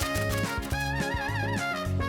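Cartoon background music: a bass line under held notes, with a wavering, vibrato note about halfway through.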